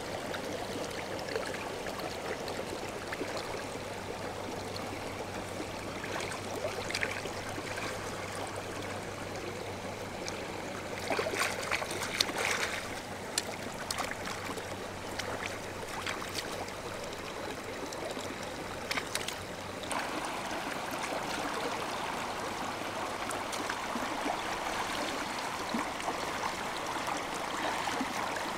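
Shallow stream water flowing over stones, a steady rushing, with a few short clicks and rustles about halfway through.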